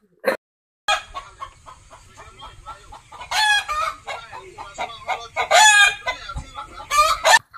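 A rooster clucking in a quick run of short notes, broken by two loud calls about three and five and a half seconds in and a shorter one near the end.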